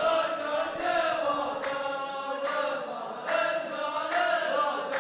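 A chorus line of men chants a verse of sung poetry in unison, the call-and-response of a Saudi muhawara. Sharp hand claps in a steady beat, a little more than one a second, run under the chant.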